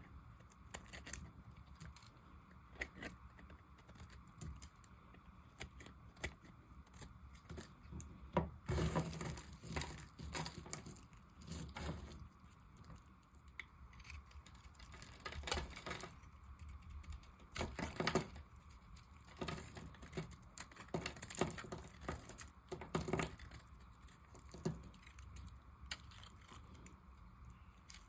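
A knife carving and cutting into a bar of dry soap: crisp crunching and crackling strokes as flakes and chunks break away. Light, scattered at first, then louder and denser strokes from about a third of the way in.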